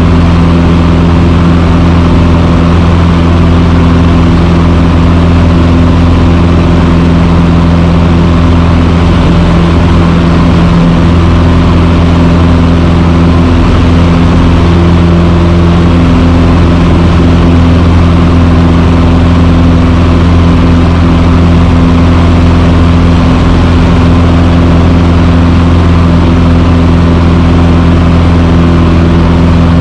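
Cessna 150's four-cylinder Continental O-200 engine and propeller droning steadily in cruise, heard loud from inside the cockpit.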